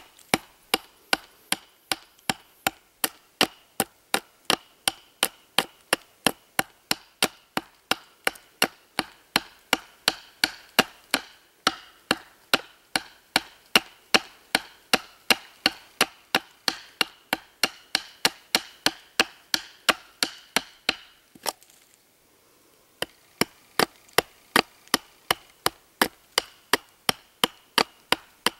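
Knife blade chopping down along a peeled wooden stick braced on a stump, whittling it to shape: sharp, regular chops about three a second, with a short break near the end.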